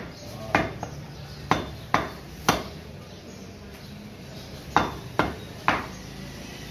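Butcher's cleaver chopping beef on a wooden chopping block: a run of sharp chops in the first half, a pause of about two seconds, then three more chops in quick succession.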